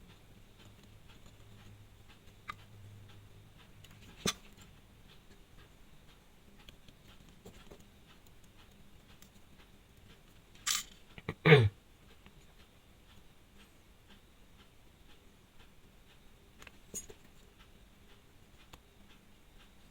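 Faint scattered clicks and ticks of small tools being worked on a wristwatch, with two louder sudden noises close together about halfway through.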